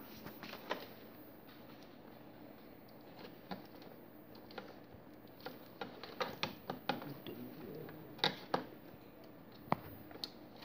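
Light plastic clicks and taps from wire-harness connectors being handled and plugged together inside a ride-on toy car's plastic body. The clicks come at irregular intervals and bunch up in the second half.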